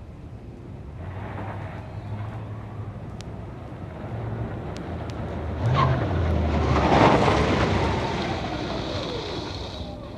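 Car engine running and revving, then tyres squealing as the car pulls away hard; loudest about seven seconds in, with a high squeal lingering near the end.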